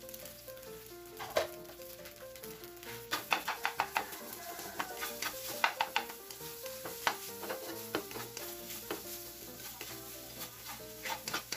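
Garlic fried rice (sinangag) sizzling in a pan while a spatula stirs it, scraping and tapping against the pan in quick clusters from about three seconds in. Background music with a plucked melody runs underneath.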